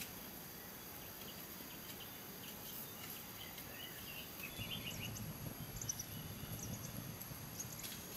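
Quiet rural ambience: faint insect and bird chirps over a steady hiss, with small clicks and a soft low rustle about halfway through.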